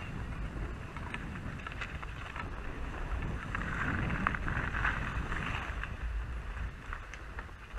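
Skis sliding and scraping over packed, tracked snow, a steady hiss with small clicks, growing louder about halfway through, while wind buffets the microphone with a low rumble.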